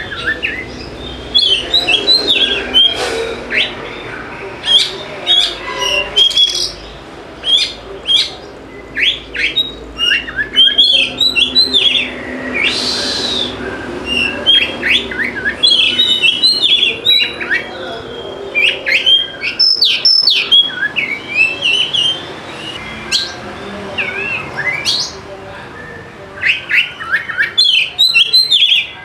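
Oriental magpie-robin (kacer) singing: fast, varied bursts of sharp whistled and chattering notes with brief pauses between phrases.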